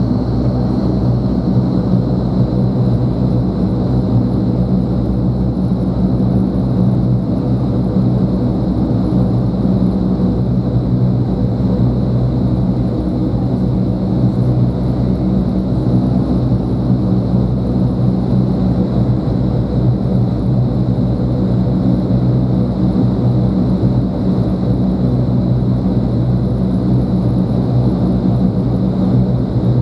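Vertical wind tunnel for indoor skydiving running at flying speed: a loud, steady rush of air from its fans, with a low steady fan hum under it.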